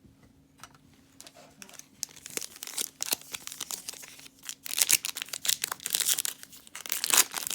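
Plastic wrapper of a trading-card pack being torn open and crinkled by hand. The crackling starts sparse and gets louder and denser over the second half.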